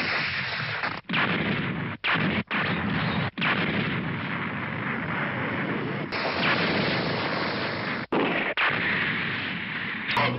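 Animated battle sound effects: explosions and weapon fire running almost without a break, cut off sharply for an instant at several edits.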